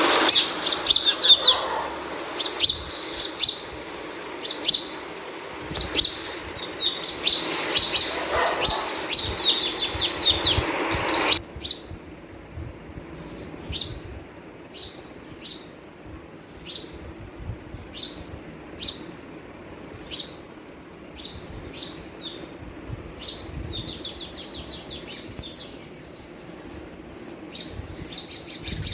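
House sparrows chirping from a nest at a window. The chirps come thick and fast over a steady hiss that cuts off suddenly about eleven seconds in, then settle to single chirps about once a second, growing busier again near the end.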